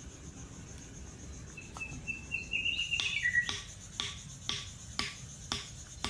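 A bird calls in a short run of chirps that rise and then drop in pitch. From about three seconds in, a hatchet's back knocks a wooden stake into the ground, about two blows a second.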